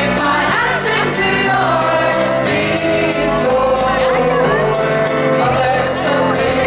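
Live band music: a woman singing over mandolin and drums, with cymbal hits.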